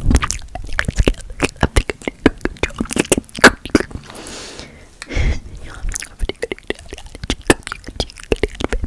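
Close-miked ASMR mouth sounds of nonsense alien-language gibberish: quick wet tongue clicks and lip smacks with half-voiced syllables. A breathy hiss comes about four seconds in, followed by a louder wet burst.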